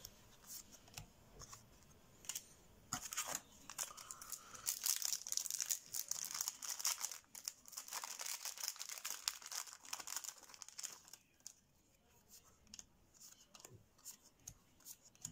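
Yu-Gi-Oh booster pack's foil wrapper being torn open and crinkled in the hands, a dense crackling from about three seconds in until about eleven seconds. After that come only a few light clicks and rustles as the cards are handled.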